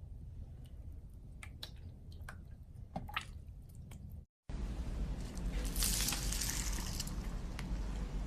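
Crunchy slime being squished and pressed by hand: sparse wet clicks and small pops, then after a short break about halfway, louder and denser crackling crunches.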